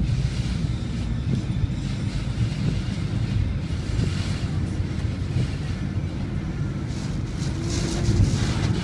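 Strong typhoon wind rumbling steadily against the microphone, swelling in gusts about halfway through and again near the end.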